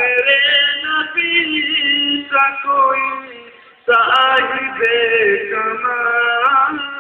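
A man singing a naat, an Islamic devotional song, in long held and wavering notes. The singing trails off just before four seconds in, then starts again on a new line.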